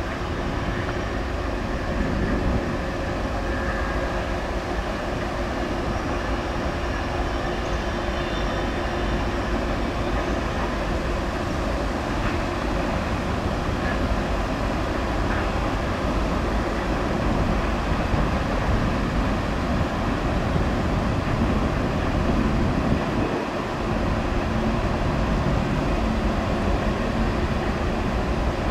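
Norfolk Southern freight train's covered hopper cars rolling steadily past, wheels running on the rails.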